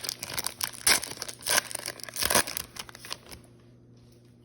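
Foil wrapper of a baseball card pack crinkling and tearing as it is opened, with a few sharp loud crackles. It stops a little after three seconds in.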